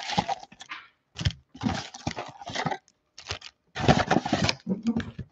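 Cardboard trading-card box being torn open by hand and its packs pulled out: a run of short rustling, scraping bursts of cardboard with brief gaps between them.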